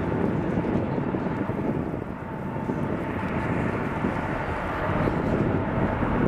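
Jet engines of a Boeing 737 running as the airliner rolls down the runway, heard from behind as a steady, loud rush, dipping slightly about two seconds in.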